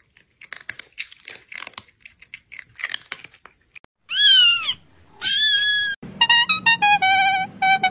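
Popcorn being munched, a crackly crunching for about four seconds. Then two cat meows, the first sliding down in pitch, and from about six seconds a quick jingle of short stepped notes.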